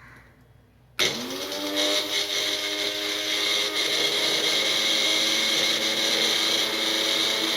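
Electric kitchen mixer grinder switched on about a second in, its motor speeding up with a rising whine and then running steadily as it grinds fresh ginger and garlic.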